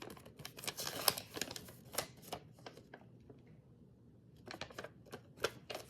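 Packaging rustling and crinkling as it is handled and opened by hand, in a run of sharp crackles, a pause of about a second and a half, then more crackles near the end.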